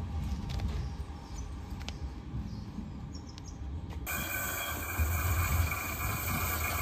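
Bombardier CR4000 electric trams on ballasted track: a low rumble with a few faint bird chirps. About four seconds in the sound changes abruptly to a steady hiss over a louder rumble as a second tram approaches.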